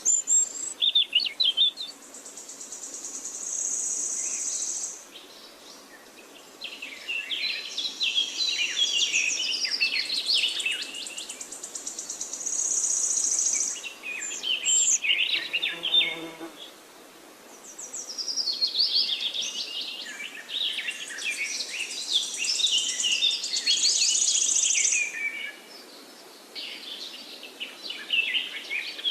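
Forest bird chorus: many birds chirping and warbling, with a high buzzing trill that comes and goes in bouts of several seconds.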